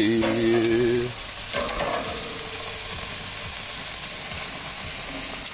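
Bratwursts sizzling on a gas grill, their fat dripping and flaring up in the flames, a steady hiss throughout. A man calls out a drawn-out "hey" in the first second.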